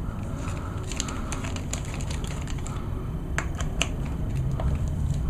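Scattered light clicks and ticks of a screwdriver working out the carburetor mounting screws on a Homelite HT-21 hedge trimmer, over a low steady hum.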